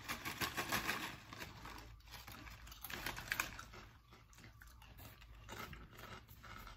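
Crunchy corn chips being chewed: irregular small crunches and clicks close by.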